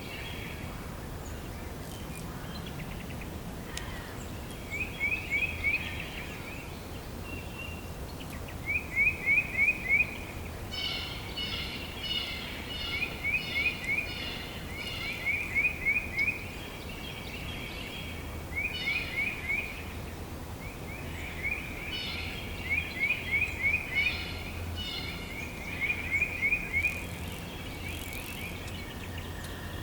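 Spring forest ambience with songbirds singing. One bird repeats a short phrase of five or six quick slurred notes every few seconds, and a second, higher-pitched bird joins with rapid clipped notes twice. A steady low rumble runs underneath.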